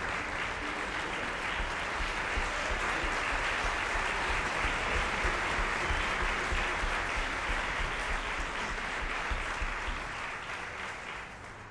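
Concert audience applauding, the clapping dying away near the end.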